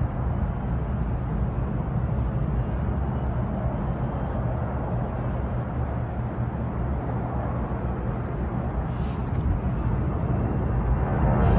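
Jet noise from a Boeing C-17 Globemaster III's four turbofan engines during a low pass: a steady, deep rumble that grows louder near the end as the aircraft comes closer.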